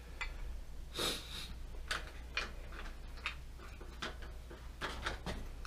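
Scattered light clicks and clinks of hand tools and small metal bike parts being handled at a workbench, with a longer, louder scrape about a second in.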